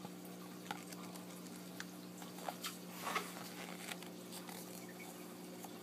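Glossy pages of a paperback travel guide being handled and turned by hand: a scatter of soft crisp paper clicks and crinkles, busiest and loudest about three seconds in, over a faint steady hum.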